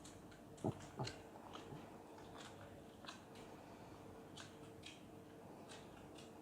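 Quiet room with faint breathing and small body movements on a yoga mat while a twist is held, with two soft knocks about a second in.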